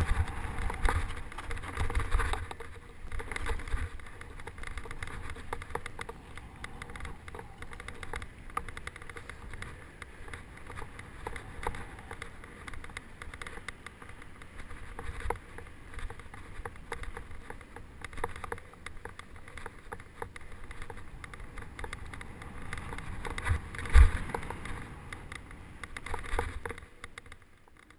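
Mountain bike rolling fast down a dirt trail, heard from a camera on the rider: a steady rumble of tyres on dirt and wind on the microphone, with the bike and camera mount rattling and knocking over bumps. Near the end, one hard thump stands out.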